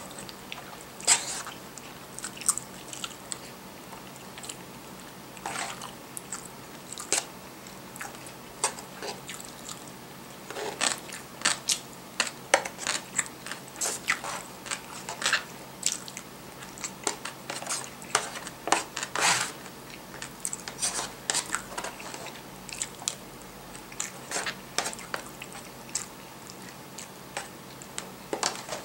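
A person chewing food close to the microphone, with irregular crunching and mouth clicks that come thickest in the middle stretch.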